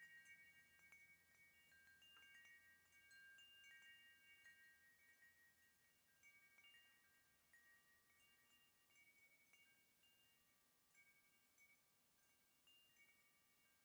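Wind chime ringing faintly, its several pitched tones struck at irregular moments and left to ring on, growing sparser and quieter toward the end.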